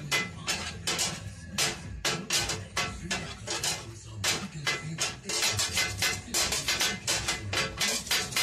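Two flat steel kottu blades chopping kottu roti on a metal griddle: a fast, rhythmic metallic clanging that gets quicker after about five seconds.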